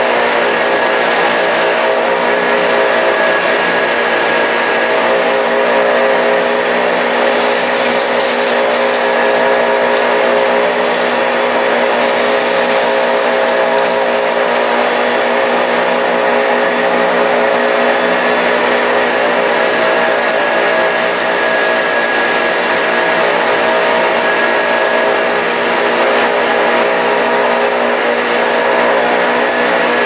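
Hoover Junior U1040 upright vacuum cleaner running steadily with suction through its hose and cleaning tool, a motor whine with a higher hiss that strengthens twice for a few seconds.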